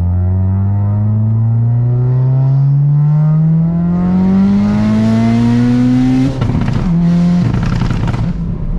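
Audi TT's big-turbo 1.8T four-cylinder engine pulling hard under full throttle, heard from inside the cabin: the revs climb steadily for about six seconds, with turbo hiss building as it comes on boost. Near the end the revs break off at the gear change, with two bursts of chattering hiss as the turbo's boost is released, then a steady lower engine note.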